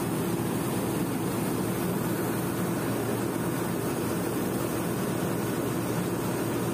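Combine harvester running steadily at working speed while its unloading auger pours paddy into a trailer: a loud, even mechanical drone with no breaks.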